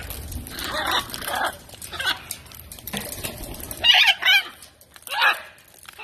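Blue-and-yellow macaws squawking: four or five separate loud calls, the loudest about four seconds in.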